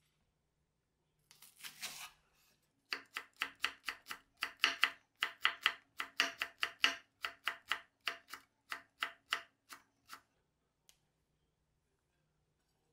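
Kitchen knife chopping a green onion stalk on a wooden cutting board: a steady run of sharp strikes, about three or four a second, stopping about ten seconds in.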